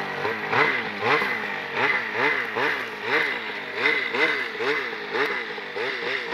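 Snowmobile engine revving up and down over and over, about two to three times a second, as the sled is worked through soft snow.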